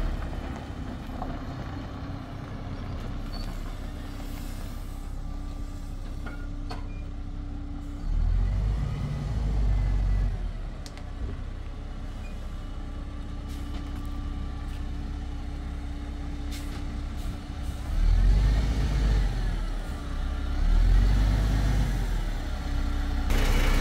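Diesel engine of a tandem-axle dump truck running as the truck manoeuvres, with two surges of revving, one about a third of the way in and one near the end.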